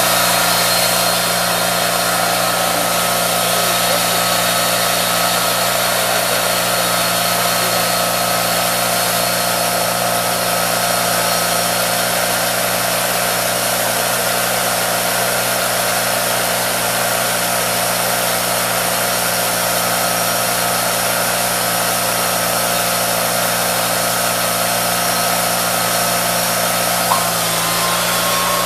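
Portable band sawmill running steadily: its engine and turning blade make an even machine drone with a constant whine.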